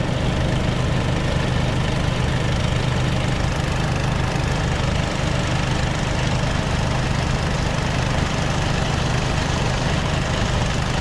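Tuman-3 self-propelled sprayer's engine idling steadily with a low, even hum while its tank is being filled with water.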